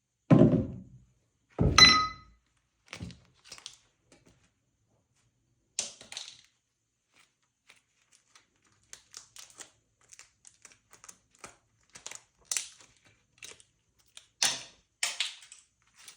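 Hammer blows crushing toys: two heavy thunks in the first two seconds, the second with a brief ring, then scattered small cracks and crackles as the pieces break and crumble, with a few sharper cracks near the end.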